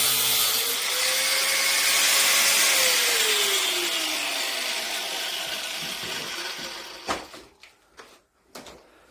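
Electric power tool motor running with a loud whir, then winding down after it is released, its pitch falling and the noise fading away by about seven seconds in; a few sharp knocks follow near the end.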